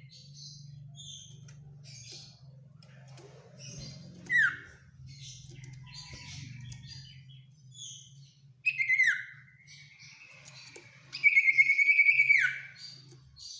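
Common iora singing: scattered high chirps, a falling whistle a few seconds in, then a falling note that levels into a held whistle, and near the end the loudest part, a fast trill that ends in a downward slide. A faint steady low hum runs underneath.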